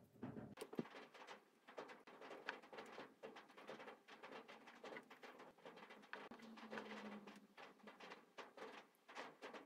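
Faint, irregular light clicks and rustling from hands handling an electrical cable and a steel roller chain, with a brief low steady tone a little after six seconds in.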